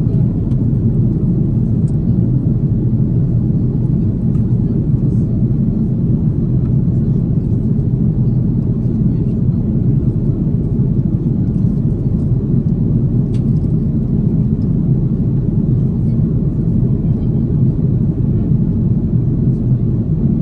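Steady cabin noise of an Airbus A330neo in flight: an even, low rumble of engine and airflow noise with no change in level.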